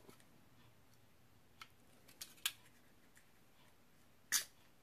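A small hand tool clicking and snipping at the nozzle of a plastic epoxy bottle, trying to cut it open: four short sharp clicks, the loudest near the end.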